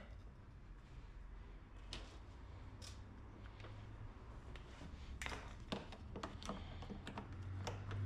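A scattering of light clicks and taps, like small metal parts or hand tools being handled, over a faint low hum.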